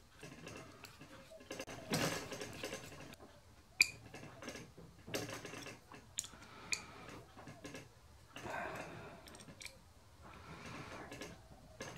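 Small steel cap screws and machined steel parts being handled and set into a steel slotter assembly by hand: scattered light scrapes and clicks, with a few sharp metallic tinks.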